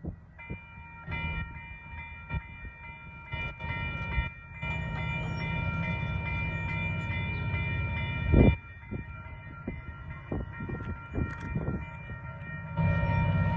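Railroad grade-crossing warning bell starting to ring about half a second in, a steady repeating ding, as the crossing gates come down. A sharp thump about eight seconds in, and a louder low rumble sets in near the end.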